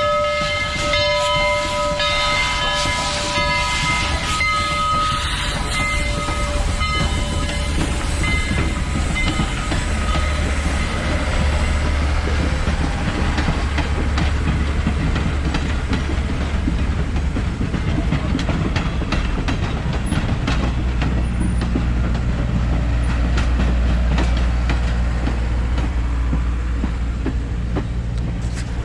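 Southern Railway 4501 steam locomotive passing close by, its multi-note whistle sounding for the first several seconds, then its train of passenger cars rolling past with steady wheel rumble and clacking over the rail joints.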